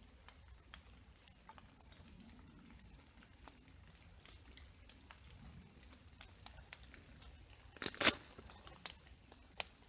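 Scattered light ticks of raindrops falling through the trees, with one brief, loud crinkling rustle about eight seconds in.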